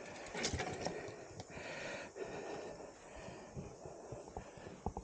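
Heavy, effortful breathing of a person labouring on foot, with scattered small clicks and knocks.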